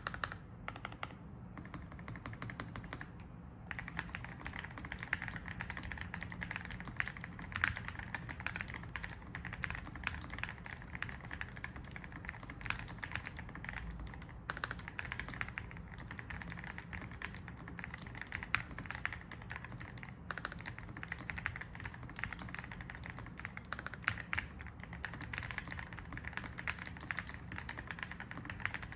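Typing sound test on a Keychron V5 Max mechanical keyboard with Keygeek Y2 tactile switches lubed with Krytox 205g0, before the tape mod. A few scattered keystrokes lead into a steady stream of muted, rapid key presses.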